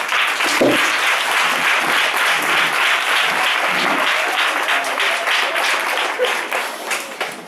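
Audience clapping steadily after a speech, easing off near the end, with a single low thump about half a second in.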